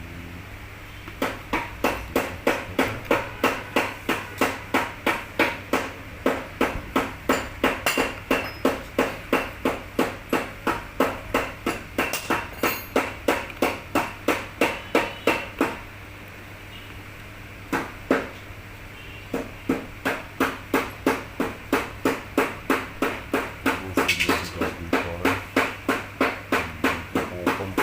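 Rapid, evenly spaced clicking, about three clicks a second, stopping for about two seconds past the middle and then resuming, over a low steady hum.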